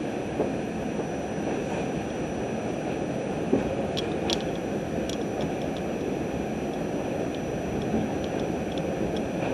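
R68 subway car running along the track, heard from on board: a steady rumble of wheels on rail with a faint, steady high whine. A few sharp clicks come about four to five seconds in.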